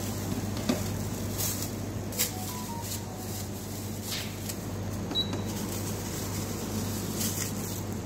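A steady low hum of machinery with about four short sharp clacks of syrup bottles being handled and set down on a steel counter, the loudest in the first two seconds.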